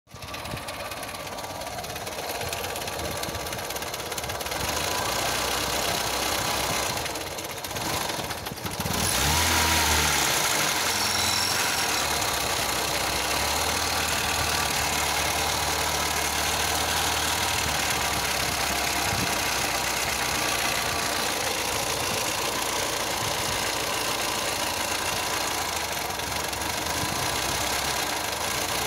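1997 Skoda Felicia's 1.3-litre four-cylinder petrol engine running with a knock coming from the left side, which the owner suspects may not be from the engine itself. It gets louder and steadier about nine seconds in.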